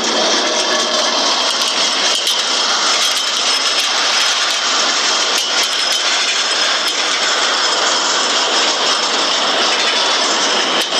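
Loud, steady rushing roar with scattered faint clicks and rattles: the soundtrack of a harbor live camera's footage of a magnitude 7.1 earthquake in Japan.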